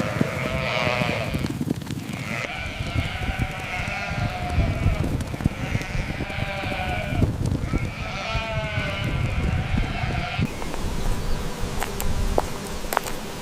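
Sheep bleating: three long, quavering bleats over a low rumble, followed after about ten seconds by a stretch of scattered clicks and rustling.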